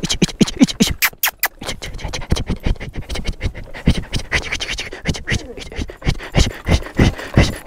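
A dog scuffling on wooden slats and panting up close: a rapid, uneven run of scratchy clicks.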